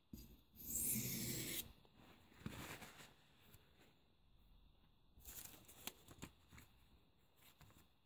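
Faint handling sounds of a sheet of paper and a pocketknife: a brief swish about a second in, then a few soft rustles and light clicks.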